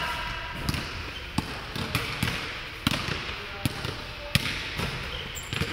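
Basketballs bouncing on an indoor court floor: a string of sharp, irregularly spaced thuds, the loudest about four and a half seconds in.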